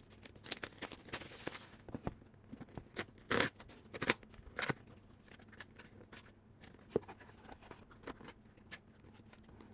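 Unboxing: a cardboard box and its packaging being handled, with scattered light clicks, scrapes and rustles, the loudest a little over three seconds in.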